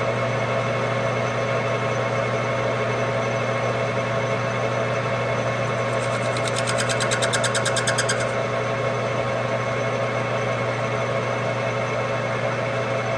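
Metal lathe running steadily with a constant hum, and a rapid even ticking of about ten ticks a second for about two seconds midway.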